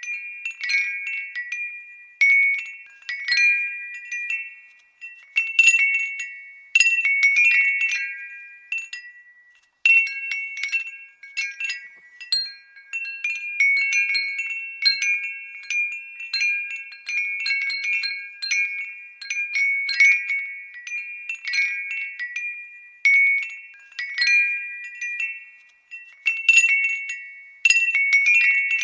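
Glass wind bell (fūrin) tinkling in irregular clusters of light strikes, each ringing out at a few high pitches and fading.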